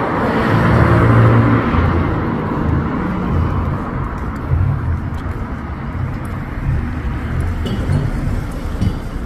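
Road traffic on a city street: a vehicle passes close by in the first two seconds, its tyre and engine noise swelling then fading, over a continuous low rumble of engines.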